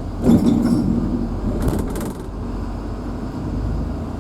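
Vehicle engine running steadily, heard from inside the cabin, with two short bursts of rattling: one about a third of a second in and a double one around two seconds in.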